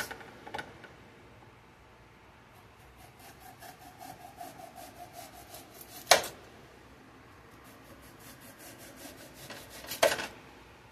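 Kitchen knife scraping and sawing at the papery skin of a whole onion in quick, even strokes, about five or six a second, with two sharp clicks, one about six seconds in and one near the end.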